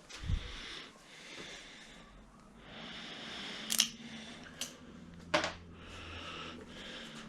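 Hands handling rubber-booted ignition leads around the engine: rustling and rubbing, a soft thump just after the start, and three sharp clicks in the middle.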